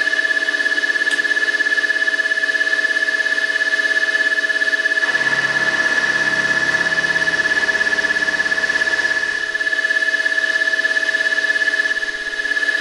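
Deckel G1L engraving machine's spindle running with a steady high-pitched whine as an end mill takes a light 0.2 mm skim cut on the top face of a lathe tool holder. A lower rumble joins for a few seconds in the middle.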